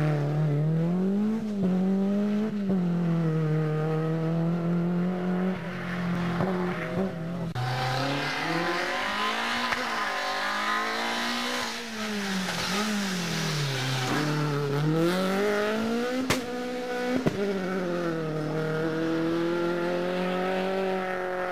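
Rally car engine revving hard, its pitch repeatedly climbing and dropping through gear changes and lifts. About seven seconds in, a rushing noise joins it, and two sharp cracks come close together near the end.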